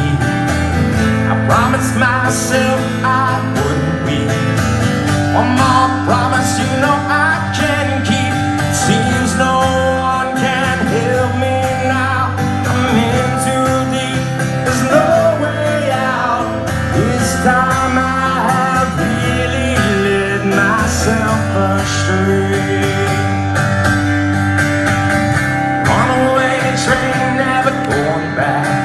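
Live acoustic song: a man singing lead into a microphone over a strummed acoustic guitar.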